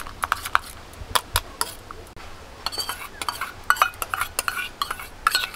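Stainless steel spoon clinking and scraping against a small steel bowl, beating egg with chopped onion, chilli and coriander: quick, irregular metallic clinks with a short ring.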